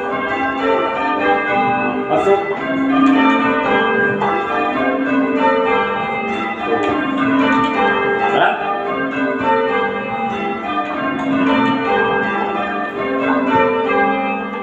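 Church tower bells being rung in English change ringing: a steady, unbroken run of bell strokes, each bell ringing on under the next.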